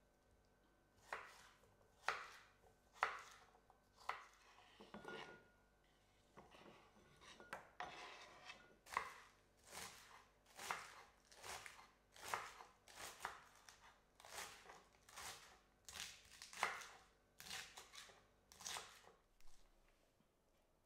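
Chef's knife slicing cucumber and then spring onions on a wooden cutting board: a run of crisp knife strokes, each cut ending in a tap on the board. The strokes come a little more than one a second and stop shortly before the end.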